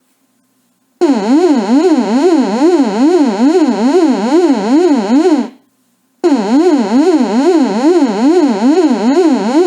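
Synthesized siren-like alarm tone, its buzzy pitch sweeping up and down about twice a second, in two long blasts separated by a short gap.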